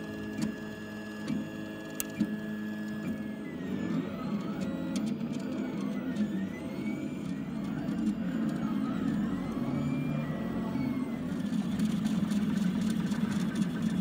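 FDM 3D printer running, its stepper motors humming and whining as the print head traces round layers. The whine swoops up and down in pitch again and again, and there are a few sharp clicks in the first two seconds.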